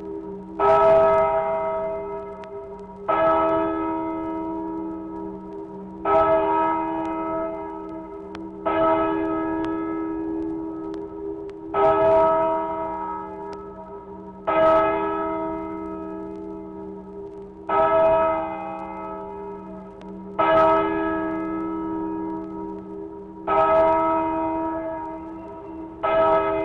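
A church bell tolling, played from a vinyl sound-effects record: about ten strokes, one every two and a half to three seconds, each ringing on and dying away before the next.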